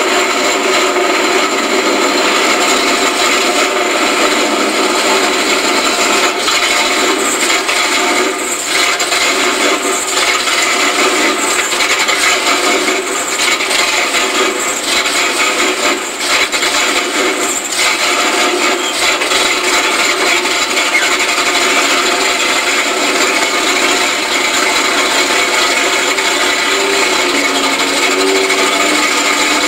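4x4 mud truck's engine running steadily, heard loud from inside the cab.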